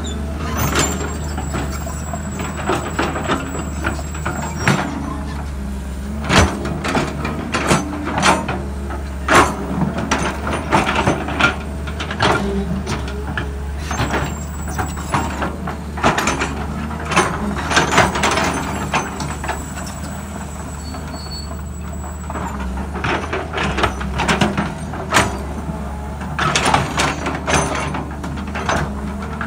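LiuGong crawler excavator working: its diesel engine runs steadily while the bucket scrapes and drags through dry, stony soil, with many clanks and crunches. A thin high whine comes and goes a few times.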